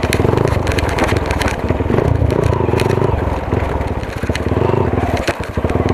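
Hero Honda CBZ Xtreme's single-cylinder four-stroke engine pulling in a low gear off-road, the throttle opening and easing off several times. Dry grass and twigs crackle and scrape against the bike throughout.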